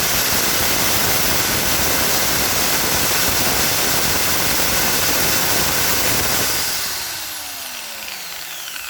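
Lotus 650 W corded impact drill running free with no load at full trigger, a loud steady motor sound. About seven seconds in the trigger is released and the motor spins down, its pitch falling as it slows.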